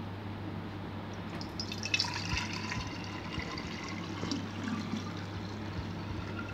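Lemon-sugar water poured from a glass bowl through a steel mesh strainer into a glass: a steady splashing trickle that starts about two seconds in.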